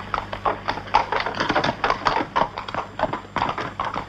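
Horse's hooves clip-clopping on a street in a quick, irregular run of knocks, several a second.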